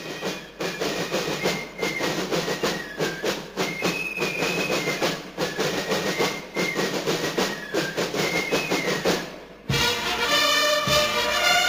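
School marching band playing a march: drums beat a dense, even rhythm under a high melody on flutes. Nearly ten seconds in it cuts to a different, fuller recording of band music.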